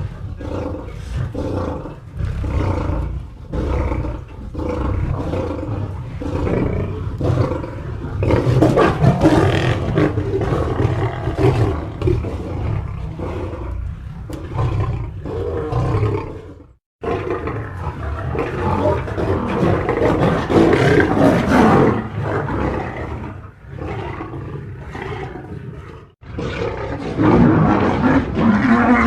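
A run of lion growls and roars played as edited sound effects: first short rhythmic growls about twice a second, then longer, louder roaring growls. Two abrupt cuts to silence, just past the middle and about two-thirds through, separate the clips.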